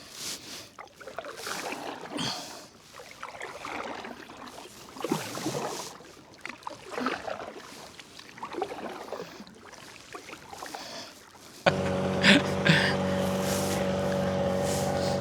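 Kayak paddle strokes dipping and splashing in river water, irregular, about one a second. Near the end a loud steady drone of several held tones cuts in abruptly.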